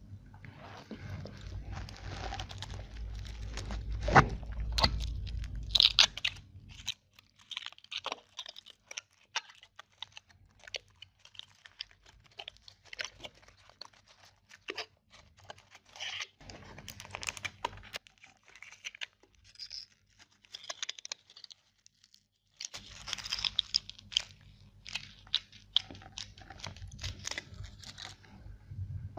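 Chocolate being bitten and chewed up close to the microphone: irregular crunches and chewing in clusters, with a couple of short pauses.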